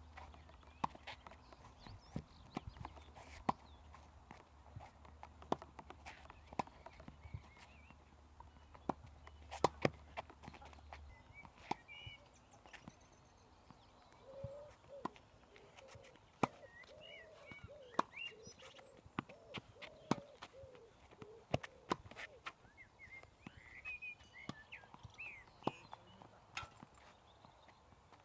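Tennis ball struck by a racket and bouncing on an outdoor hard court during a rally: a string of sharp pocks at irregular intervals. Birds chirp in the background in the second half.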